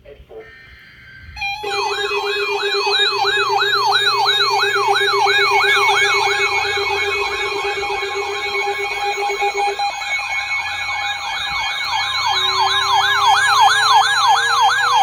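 Electronic siren alarm: a fast yelp sweeping up and down about three times a second over steady tones. Near the end a slowly rising wail starts.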